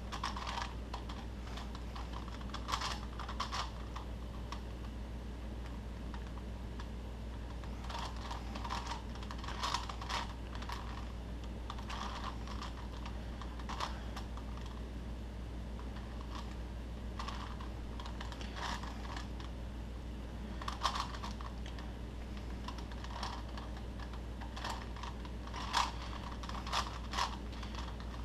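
Plastic Rubik's-type puzzle cube being turned by hand, its layers clacking in quick flurries of clicks with short pauses between them.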